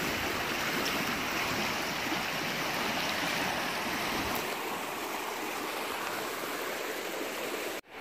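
Swollen, muddy creek at high water, rushing steadily with an even wash of moving water. The sound drops out suddenly for an instant near the end.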